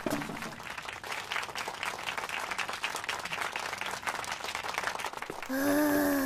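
Audience applauding, many hands clapping. About five and a half seconds in, the clapping gives way to a girl's long, drawn-out voiced sound that rises a little and then falls in pitch.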